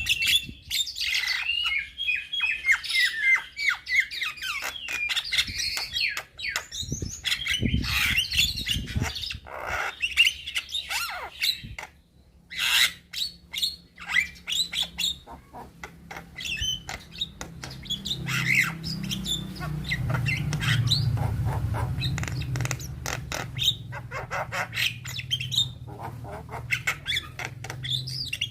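Young Javan myna (jalak kebo) singing a varied, chattering song of whistles, chirps and harsh squawks, densest in the first half and sparser with sharp clicks later. A low hum comes in during the second half.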